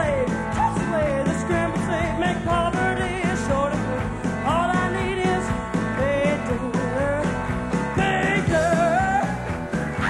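Live country-rock band with electric and acoustic guitars, keyboard and drums playing an instrumental break: a lead line of bending, sliding notes over a steady beat.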